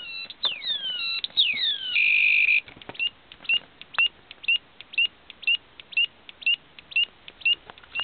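Homemade transistor siren circuit of two astable multivibrators sounding through a small loudspeaker: repeated high electronic whistles falling in pitch, about two a second. About two seconds in, a steady high tone holds for half a second, then the sound becomes short high chirps about twice a second, with a few clicks along the way.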